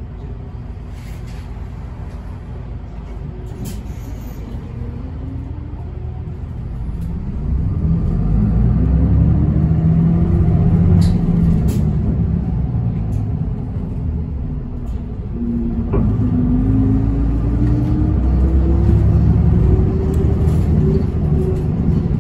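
Interior running sound of an Isuzu Erga QPG-LV234L3 diesel city bus pulling away and accelerating. The engine and drivetrain grow louder about seven seconds in, with a whine rising in pitch. It eases off briefly, a single click comes, then it rises in pitch again as the bus picks up speed.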